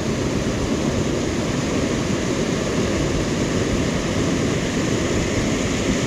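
Steady rushing of a small mountain stream's water, an even noise with no change in level.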